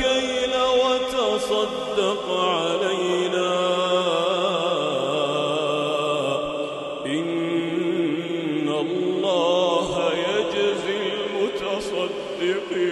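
A man reciting the Quran in a slow melodic chant (tajwid recitation), drawing out long notes with wavering, ornamented turns of pitch.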